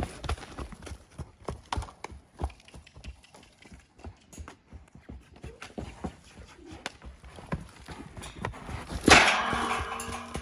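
Horse's hoofbeats, an irregular run of short knocks as it moves about. About nine seconds in comes a loud rush of noise that fades over a second.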